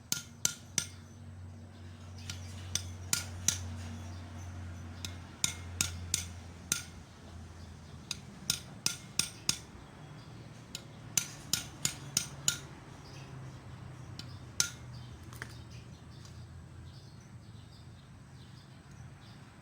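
Gentle metal-on-metal hammer taps in short clusters of a few strikes each, with pauses between them: a 12 mm socket being tapped to seat the valve stem seals onto the valve guides of a 4D56 diesel cylinder head.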